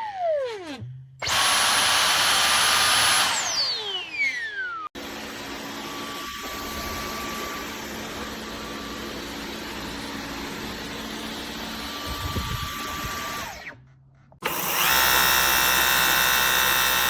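Dyson V15 cordless stick vacuum's motor switching on and off: a high whine falling in pitch as it spins down, then loud steady running, another spin-down, a quieter steady stretch, and a sudden loud restart near the end.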